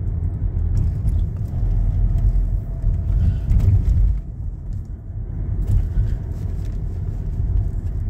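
Steady low rumble of road and engine noise inside a moving car's cabin, easing briefly about five seconds in.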